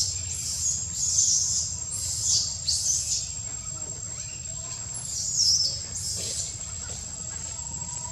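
Birds chirping: a quick run of short, high, downward-sweeping calls, then a pause and a couple more. Behind them a thin, steady, high insect whine runs throughout.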